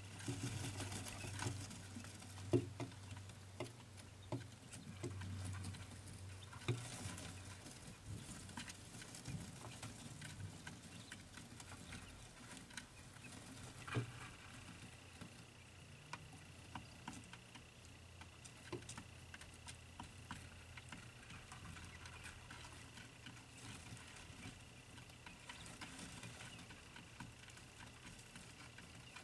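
Day-old quail chicks pecking and scratching about: scattered light taps and scuffles with a few sharper knocks, over a steady low hum.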